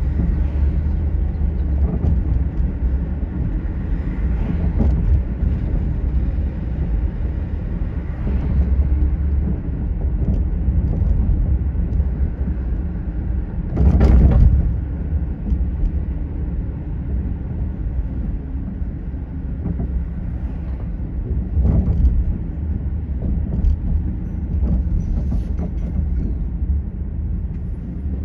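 Car driving, a steady low rumble of road and engine noise. A sharp knock about halfway through is the loudest moment, with a few lighter knocks scattered around it.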